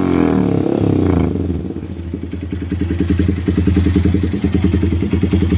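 Yamaha Vixion R's single-cylinder engine running through a Pro Liner TR1 full-system aftermarket exhaust. A brief rev at the start falls back, and the engine settles into a rapid, even idle pulse.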